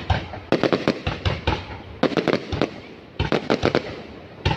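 Fireworks going off in quick volleys of sharp bangs and cracks, about four clusters with echoing rumble between them.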